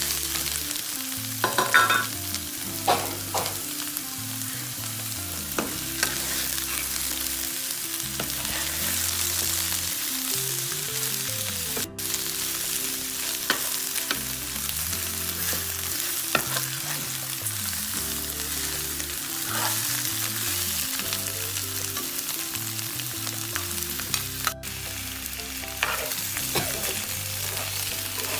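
Catfish steaks and kroeung paste sizzling in hot oil in a nonstick frying pan, stirred with a metal spatula. Now and then there is a sharper scrape or clink of the spatula against the pan.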